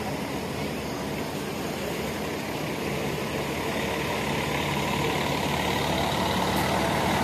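Intercity coach's diesel engine running at low speed as the bus pulls slowly away from the departure bay, a steady engine note that grows gradually louder.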